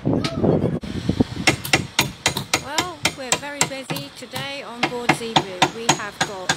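Repeated sharp hammer blows, a few a second, striking a chisel to cut rotten timber out of a wooden ship's stem. Voices talk faintly underneath.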